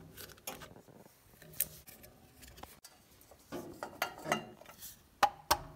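Plastic cooling fan and then the metal fan cover of an AC electric motor being fitted by hand: scattered clicks, taps and knocks of plastic and metal, a few sharper ones in the second half.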